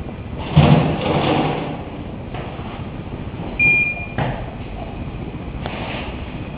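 Gas patio heater's flame burning in its glass tube with a steady hiss. A loud knock comes about half a second in, then a short high beep just past the middle, followed by a couple of sharp clicks.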